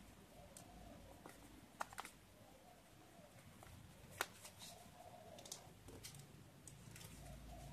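Sheet of paper being folded and creased by hand: quiet rustling with a few short, sharp crackles, the loudest about four seconds in.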